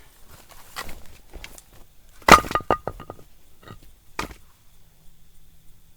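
Firewood cracking and breaking apart: a few sharp knocks, then one loud crack about two seconds in with a short clatter right after it.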